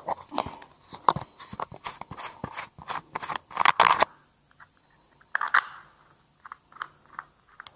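A quick, irregular run of sharp clicks, knocks and rustles for about four seconds, then a few scattered clicks: close handling noise.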